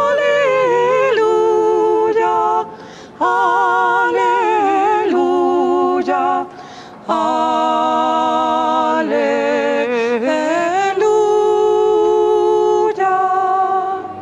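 Unaccompanied singing: long held notes with vibrato, sung in phrases with two short breaks, about three seconds and six and a half seconds in.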